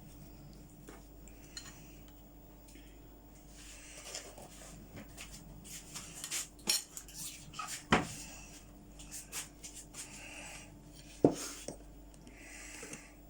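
Cutlery clinking and scraping against plates as people eat, with scattered sharp clinks, the loudest about eight and eleven seconds in.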